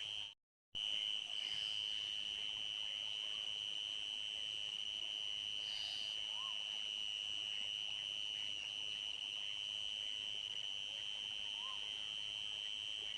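Crickets chirring in a steady, unbroken high-pitched night chorus. The sound cuts out completely for a fraction of a second about half a second in. Two faint short calls rise and fall under the chorus midway and near the end.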